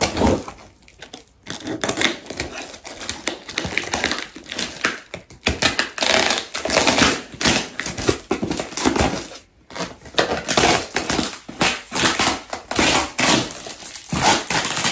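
Packing tape being cut and ripped off a cardboard parcel, with crinkling and scraping in quick, irregular strokes.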